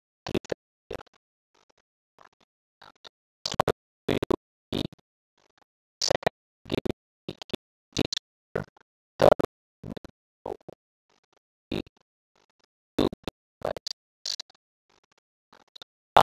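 A stylus writing on a pen tablet: short, irregular scratches and taps, one for each handwritten stroke, with silence between them.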